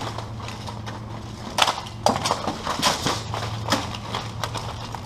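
Steel plate armour and weapons clanking and clashing in armoured combat sparring: a string of sharp metallic hits, most of them between about one and a half and four seconds in.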